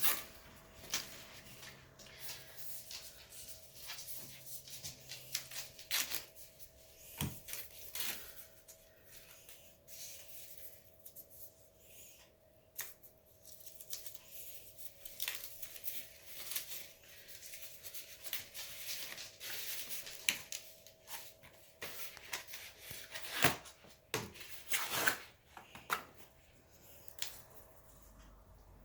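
Packaging being handled and pulled off a new bicycle during unboxing: irregular rustling, tearing and scraping with scattered sharp clicks, over a faint steady hum.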